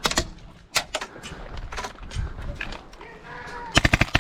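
Airsoft MP7 gas blowback rifle on an HPA adapter firing a rapid full-auto burst near the end, its bolt cycling at about fifteen shots a second. A few scattered sharp knocks come before it.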